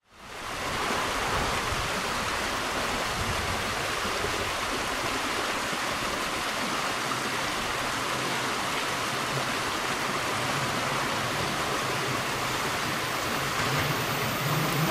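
Steady rushing of running water, even and unbroken. A low hum comes in near the end.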